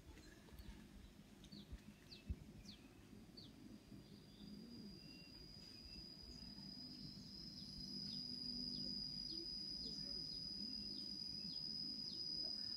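Faint riverside ambience: short high falling chirps repeating about once a second, with a steady high insect whine that comes in about three seconds in and grows louder past the middle.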